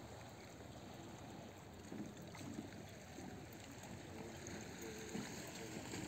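Faint lakeside ambience: small waves lapping gently at the shore, steady and low, with no distinct events.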